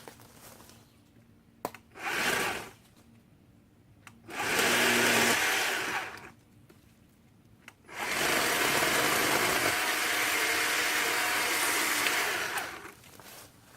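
WORX 40-volt battery-powered chainsaw's electric motor run in three bursts as it cuts azalea branches: a short one, a longer one of about two seconds, then a long steady run of about four seconds.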